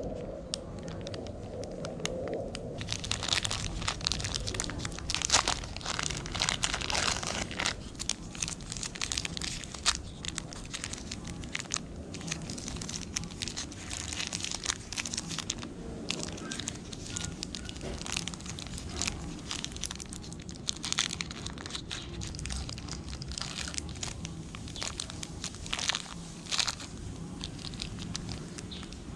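Plastic wrapper of a Snickers bar crinkling and tearing as it is handled and opened, with crunchy bites of the bar mixed in.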